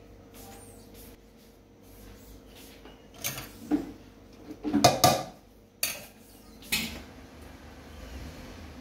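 A metal knife knocking and scraping against an aluminium cooking pot while spreading rice and chicken masala for biryani: a handful of sharp clinks between about three and seven seconds in, the loudest near five seconds.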